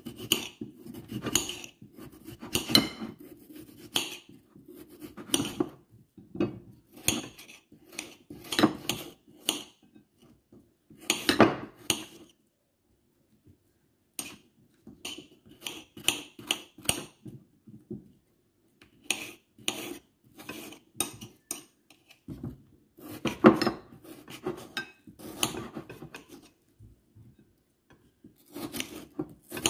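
A kitchen knife cutting raw potatoes into cubes over a ceramic plate: a run of short, sharp clicks and taps as the blade goes through the potato and knocks against the plate, with a couple of brief pauses.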